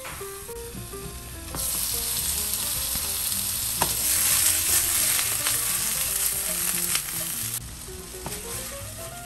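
Pork gyoza pot stickers sizzling in oil in a hot pan. About a second and a half in, the sizzle jumps to a loud, fierce hiss as water is added to steam them, then cuts off sharply near the end.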